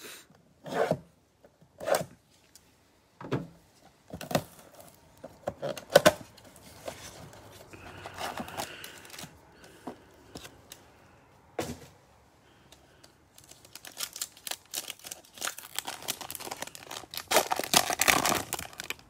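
A cardboard trading-card blaster box handled and opened: separate sharp clicks and scrapes, then a foil Panini Prizm card pack torn open and crinkling, loudest near the end.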